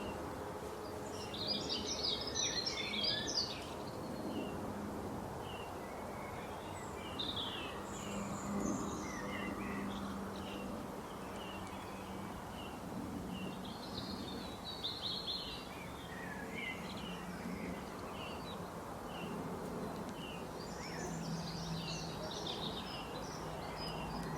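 Small songbirds chirping and twittering, with busier bursts of twittering a couple of seconds in, around the middle and near the end, over a steady outdoor background hiss.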